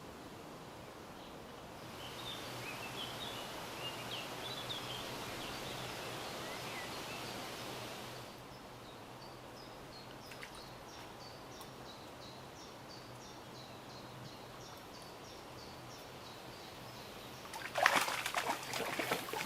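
Quiet riverside ambience with wild birdsong: scattered chirps at first, then a bird repeating a short high note about twice a second. Near the end comes a sudden loud burst of splashing and clattering.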